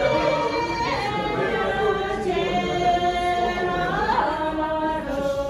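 A group of voices singing together, holding long notes with short upward slides between them.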